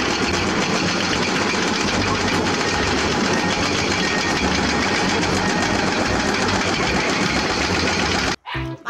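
Excavator-mounted hydraulic rock breaker hammering on rock, with the excavators' diesel engines running, in a dense, steady mechanical clatter. It cuts off suddenly near the end.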